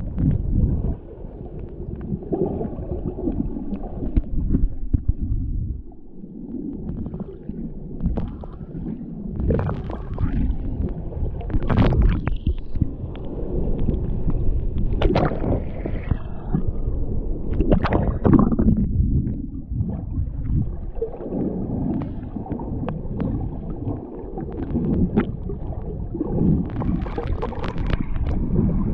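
Ocean surf washing ashore, swelling and easing in irregular surges with brief splashes breaking through.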